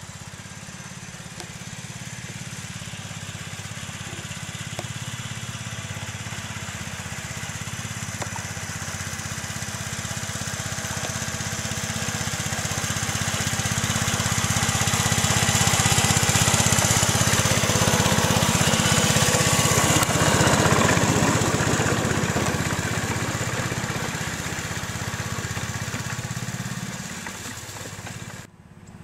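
Small engine of a ride-on backyard-scale locomotive running steadily as it pushes a snow plow along the track. It grows louder as the locomotive comes close, is loudest about two-thirds of the way through, then fades as it moves away, and cuts off just before the end.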